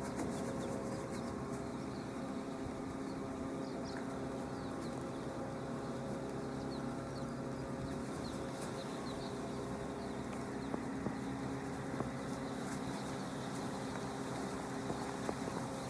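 A steady mechanical hum, with faint short high chirps of birds scattered over it.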